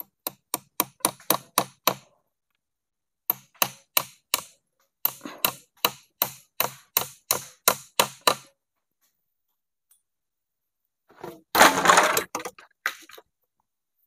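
Hammer driving a nail into wood, with sharp blows coming about four a second in three runs separated by short pauses. Near the end comes a louder, noisier burst lasting about a second.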